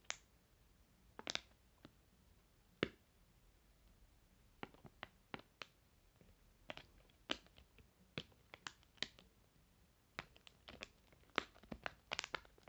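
Pill-blister pop-it fidget toy pressed with the fingers: its plastic bubbles pop as sharp single clicks at irregular moments, with several close together near the end.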